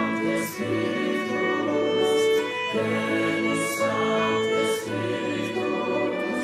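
Virtual choir of mixed voices singing together from home recordings, with a violin playing along. The notes are held and flowing, with soft 's' sounds from the singers' words recurring every second or so.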